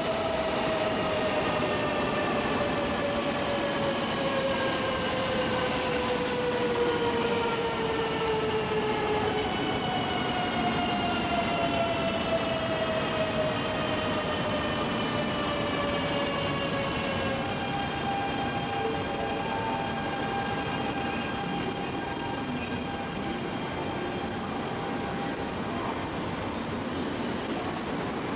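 E2-series Shinkansen train arriving along the platform and slowing. A whine of several tones falls steadily in pitch over a running rumble as it decelerates. About two-thirds of the way in, the falling whine gives way to steadier tones, with a thin high one, as the train creeps along at low speed.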